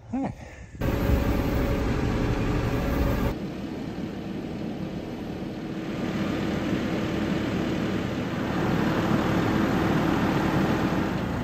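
John Deere 5065 tractor's diesel engine running steadily while the tractor moves a long steel truss on its front-loader pallet-fork extension.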